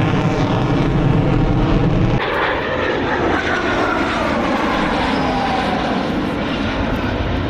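Military aircraft flying past during an airshow, with a loud engine rumble. About two seconds in the sound changes abruptly, and the engine's pitch then falls slowly as the aircraft passes.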